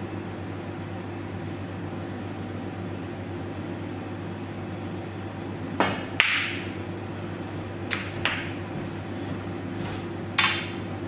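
A snooker cue tip strikes the cue ball about six seconds in. A moment later comes a sharp ringing click as the cue ball hits a red, then a few more knocks of the balls off the cushions. A steady low hum runs underneath throughout.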